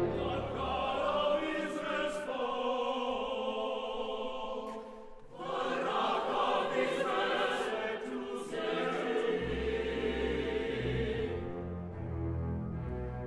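Mixed choir singing with orchestra in a concert hall. The voices break off briefly about five seconds in, then come back in.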